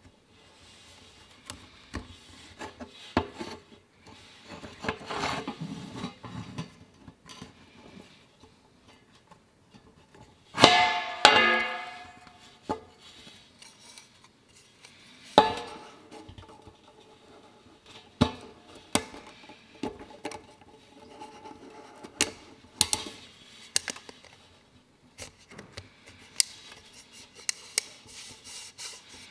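Handling noise of a plastic oil filter housing cap as its rubber seals are worked off and replaced: scattered small clicks, rubbing and knocks. Two louder knocks, about ten and fifteen seconds in, ring briefly as parts hit the metal drain pan.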